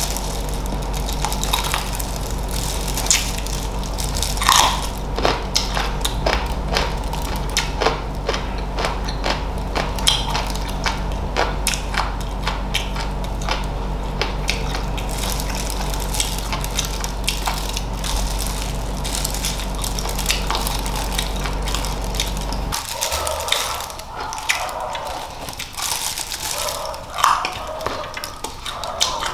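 Close-up eating sounds of crunchy chicken feet in Thai sauce: repeated biting, crunching and wet chewing. A steady low hum underneath cuts off suddenly about 23 seconds in.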